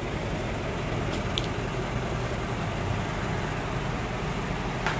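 Truck engine idling, a steady low hum, with a couple of faint clicks, about a second and a half in and near the end.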